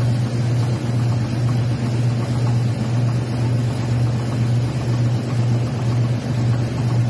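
Electric Shin Nong rice mill running steadily while milling rice: a loud, even drone with a dense grainy rush above it.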